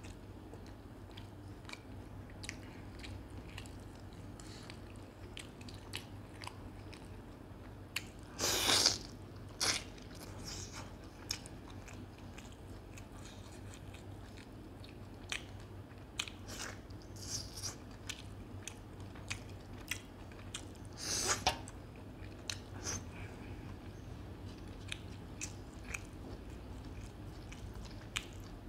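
Close-up chewing and biting of chicken curry on the bone, with small wet mouth clicks throughout and two louder crunching bursts, about a third of the way in and again about three-quarters through.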